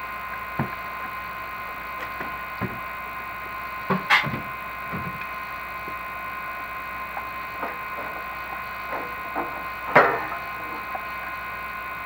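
Steady electrical whine and hum from a chimney inspection camera rig, broken by scattered knocks and scrapes as the camera is lowered down a brick flue. A sharp knock comes about four seconds in, and the loudest one comes near the end.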